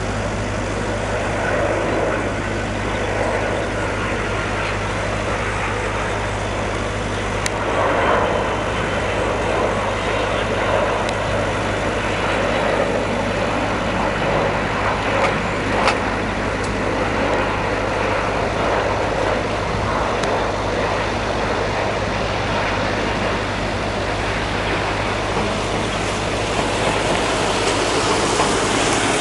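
Steady engine rumble under a broad, even roar, with a constant low hum and no clear rise or fall.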